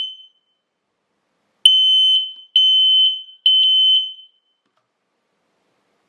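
WisuAlarm smoke alarm sounding its test alarm, set off remotely from the app: a loud, high-pitched beep in the standard temporal-three pattern. The last beep of one group dies away at the start, and a full group of three half-second beeps follows about a second and a half in.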